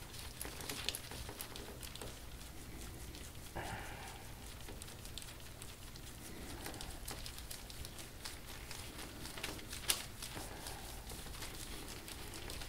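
Faint skin-on-skin rubbing and scattered small clicks of hands working deep into the back muscles during deep-tissue massage, with a few soft breaths or groans from the patient, the first about three and a half seconds in.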